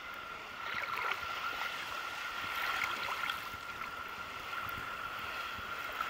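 Small sea waves lapping and sloshing against a camera held at the waterline: a steady splashy wash with many small splashes, over a faint steady high tone.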